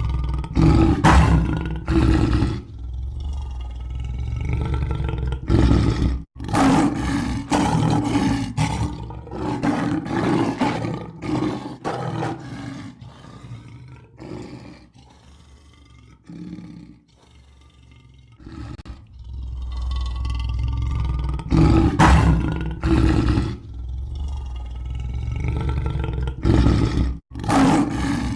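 Lion roaring again and again, deep and loud, with a quieter lull about halfway through before the roaring starts up again.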